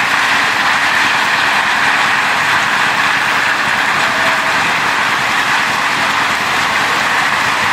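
Heavy rain mixed with hail pouring down: a steady, loud hiss that does not let up.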